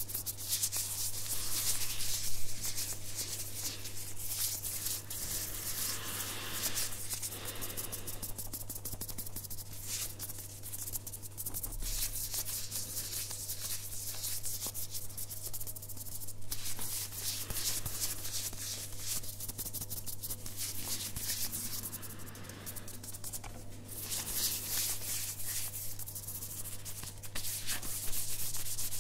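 Hands in clear disposable plastic gloves rubbing together close to the microphone: a dense, scratchy rubbing that swells and eases, over a steady low hum.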